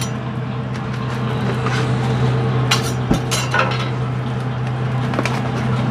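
Metal kitchen utensils, a knife and a spatula, clinking and tapping a few times over a steady low machine hum.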